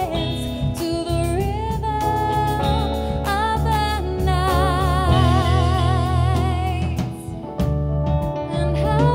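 Live band performance of a dance-pop song: a woman singing long held notes with vibrato over the band's guitar and a steady, heavy low end.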